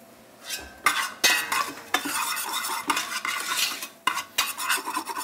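Metal spoon scraping and clinking against the inside of a stainless steel stockpot as mushrooms and olives are stirred in it. It starts about half a second in, with a few sharp knocks of the spoon against the pot.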